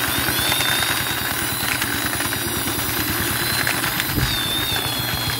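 Toy army jeep pushed by hand along a stone ledge, its friction motor giving a steady, fast engine-like rattle with a thin high whine over it.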